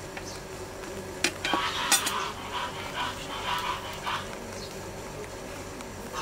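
An animal calling in a quick series of short calls, with two sharp knocks just before and as the calls begin.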